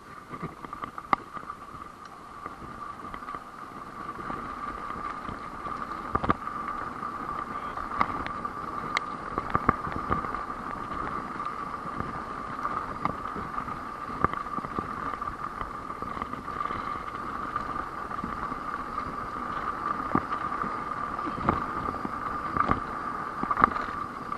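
Mountain bike coasting fast down a dirt singletrack: a steady high buzz from the rear freehub ratcheting, over the rumble of the tyres on dirt. Scattered sharp knocks and rattles come from the bike hitting bumps.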